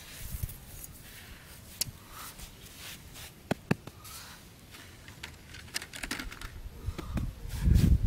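Hands working sandy soil around a hole: soft scraping and rustling of sand with a few sharp clicks, growing louder with thumps near the end.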